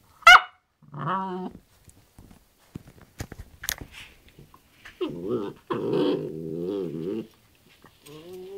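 Border Collie vocalizing as she settles in her bed: a sharp high whine just after the start, then low grumbling growls, one short about a second in and a longer one from about five to seven seconds in. Scratching and rustling of the bed come in between as she turns around.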